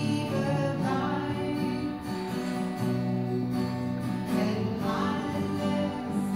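Live gospel worship song: an acoustic guitar played with a singer's voice, heard from far back in a large hall.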